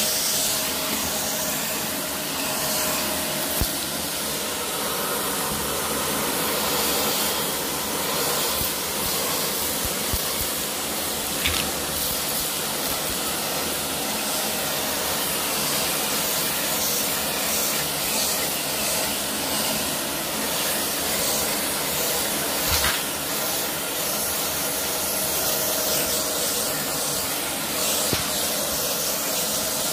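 Dyson vacuum cleaner running with a steady hiss as its nozzle works over carpet, with a few brief clicks spread through.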